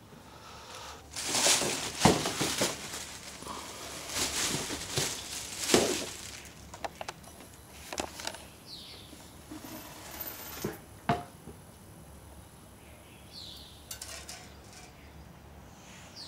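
Thin plastic shopping bag rustling and crinkling in several bursts as a boxer puppy noses and tugs into it, with a few sharp knocks. Later come scattered sharp clicks and a few short high chirps.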